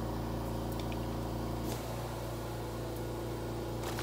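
A running kitchen appliance or fan hums steadily, a mix of several constant low tones. Right at the end, a plastic cheese bag starts to crinkle.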